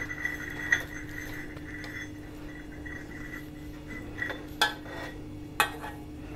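A few light metallic clinks of a steel measuring cup knocking against a stainless-steel mixer-grinder jar as wheat flour is tipped in, the two sharpest near the end. A steady low hum runs underneath.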